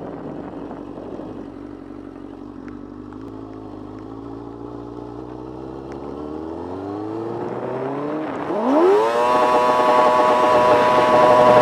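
Suzuki GSX-R600 inline-four sportbike engine pulling on the move, its revs climbing gradually, dipping briefly about eight seconds in, then rising sharply and holding high. Wind rush grows louder as the speed builds.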